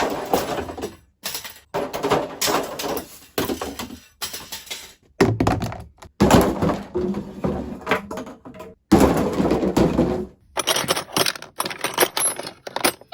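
A string of clattering crashes from assorted junk (paint rollers, plastic tubs, metal tools, a level) being dropped and tumbling, one short take after another, with abrupt cuts between them.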